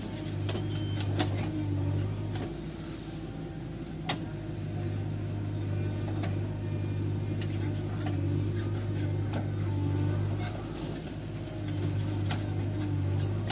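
Heavy diesel engine running steadily, its level swelling and dipping as the load changes, with scattered sharp clanks, the loudest about a second in and about four seconds in.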